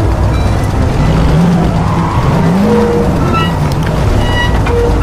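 Race car engines running at speed, their pitch rising and falling, with music underneath.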